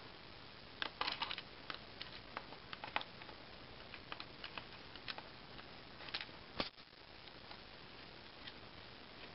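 Faint scattered clicks and taps of a hand handling a laptop's plastic underside, with one sharper click a little past halfway.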